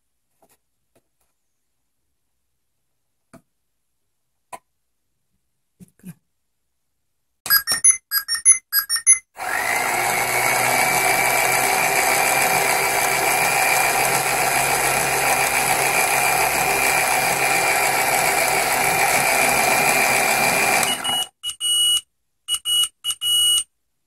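Battery-operated toy washing machine: a quick run of electronic beeps, then its small motor spins up and turns the drum for about eleven seconds with a steady whine, stopping suddenly and followed by a few more beeps.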